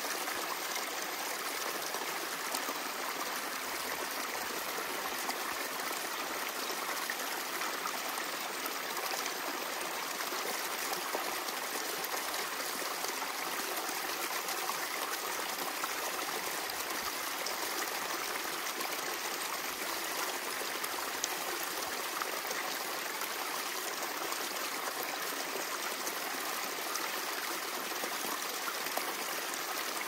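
A clear stream babbling steadily, an even rush of flowing water.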